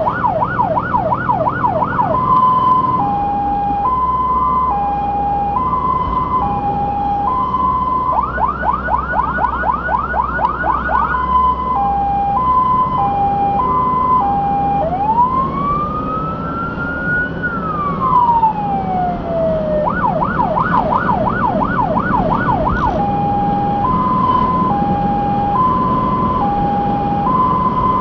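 Fire engine's electronic siren cycling through its modes: a fast yelp, then a two-note hi-lo, again and again, with one slow rising-and-falling wail about halfway through. The truck's engine and road noise run underneath.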